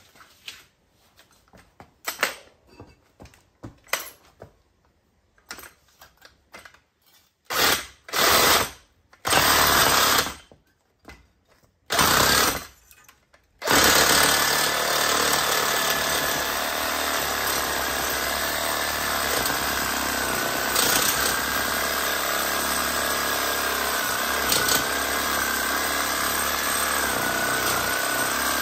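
Handheld power tool working on a rusted, seized sway bar link end bolt. There are a few small clicks and knocks first, then several short bursts of the tool, each a second or so long, and then it runs without a break for the second half.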